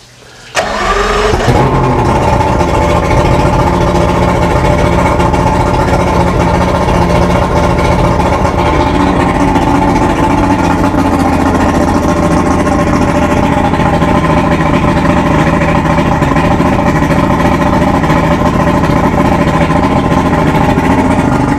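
Yamaha HPDI 200 hp two-stroke V6 outboard starting on a short turn of the starter about half a second in, then settling into a steady idle.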